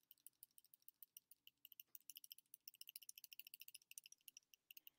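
Near silence with faint, rapid, irregular high-pitched clicking.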